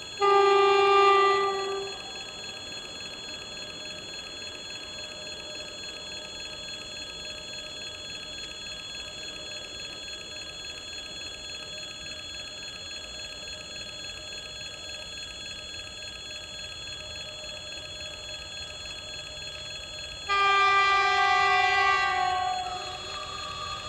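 Level-crossing warning bell ringing steadily while an approaching EP1 electric locomotive sounds its horn twice: a blast of about a second and a half at the start, and a longer one about 20 seconds in that dips slightly in pitch as it ends.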